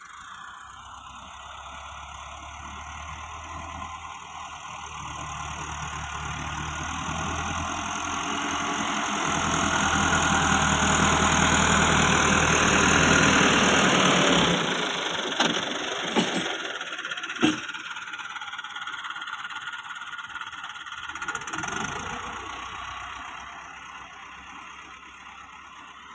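Massey Ferguson 385 tractor's diesel engine working under load, growing louder as it nears and then easing off. After that come a few sharp metal clanks as the rear scraper blade tips sand into the trolley, and the engine fades as the tractor moves off.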